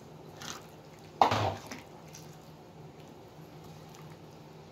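Tofu pieces dropped by hand into a wok of simmering coconut-milk stew: a faint plop about half a second in, then a louder wet splash a little over a second in that quickly dies away, leaving a low background.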